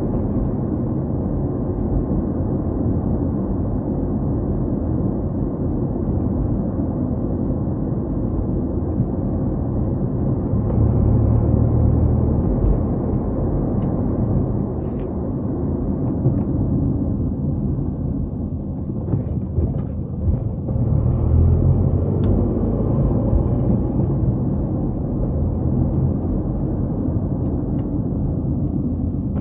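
A car driving along: a steady low rumble of engine and tyre noise on the road. It swells louder about ten seconds in and again about twenty seconds in.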